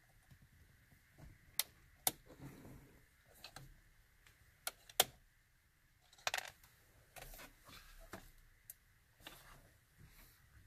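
Scattered sharp clicks and light knocks of hard plastic parts being handled, as the driver's airbag module is pulled out of a pickup's steering wheel; the loudest clicks come about 2 and 5 seconds in, with a cluster about 6 seconds in.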